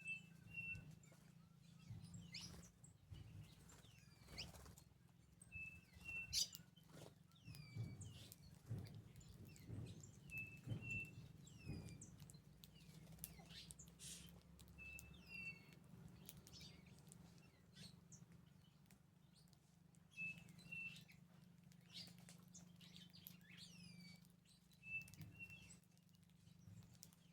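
Small birds calling: a short doubled whistle note repeated about every five seconds, among many quick downward-sliding chirps and scattered light taps.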